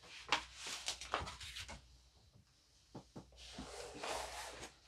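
Packaging being handled: a run of light clicks and knocks, then a soft scraping rustle as the long cardboard kit box is slid and handled.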